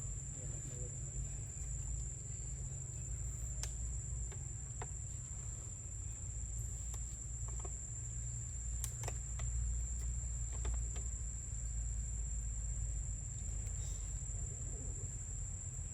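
Steady high-pitched insect drone, like crickets, over a low rumble, with scattered faint clicks and taps.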